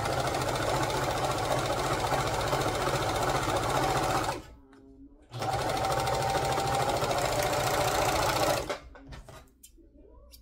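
Electric sewing machine stitching at a steady speed in two runs of about four seconds each, with a pause of about a second between them; it stops a little before the end.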